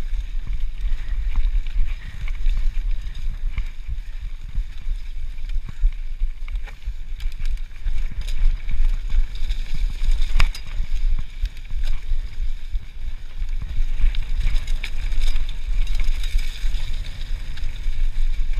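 Mountain bike riding fast down a leafy dirt singletrack: a steady low rumble of the tyres and wind buffeting the microphone, with scattered clicks and rattles from the bike over bumps.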